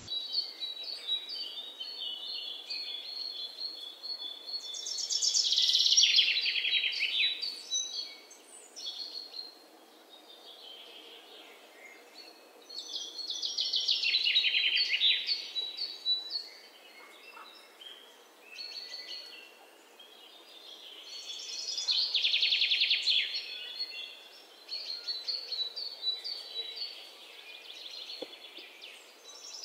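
Birds singing: high chirps and trills, with a louder burst of rapid trilling about every eight seconds.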